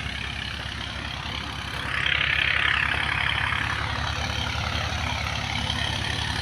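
Wheat thresher and its driving engine running steadily: a fast low engine pulse under a rushing hiss that grows louder about two seconds in.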